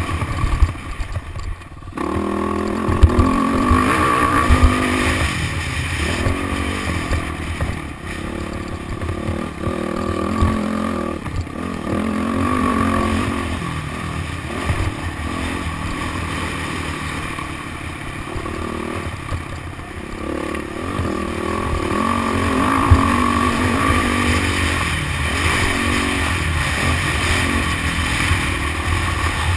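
Motocross dirt bike engine revving hard and dropping off again and again as it is ridden around a dirt track, heard through a GoPro with heavy wind rumble on the microphone and occasional knocks.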